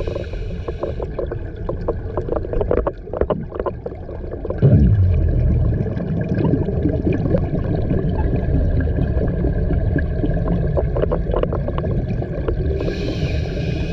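Scuba diver's regulator breathing heard underwater: a hissing inhalation at the start and again near the end, and between them a loud, rumbling stream of exhaled bubbles that begins about five seconds in.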